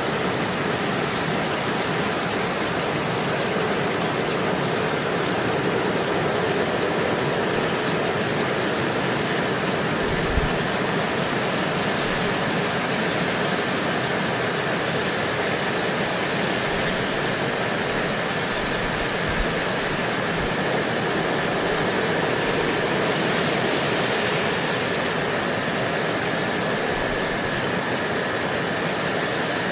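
Gentle steady rain falling, an even hiss with no break. A brief low thump sounds about a third of the way through, and a fainter one later.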